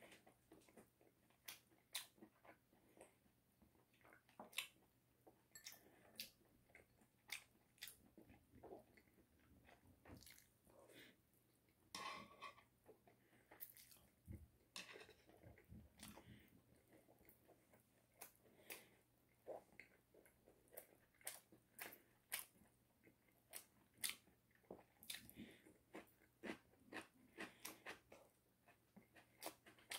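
Close-up eating sounds of a person biting into and chewing Goobne chicken: many short, sharp bites and chewing clicks at an irregular pace.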